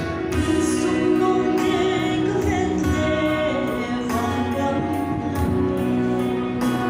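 A worship song: singing over an instrumental accompaniment with a steady beat.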